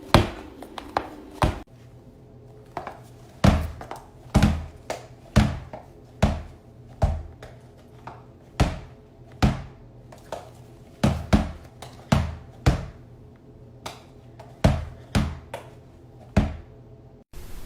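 Toy balls knocking in a series of separate sharp thunks, about one a second at an uneven pace, each with a short fading ring.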